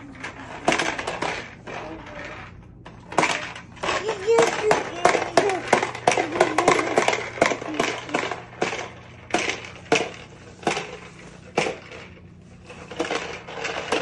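Irregular plastic clattering and knocking as a vacuum cleaner is pushed and bumped about, with a young child's short babbling sounds in between.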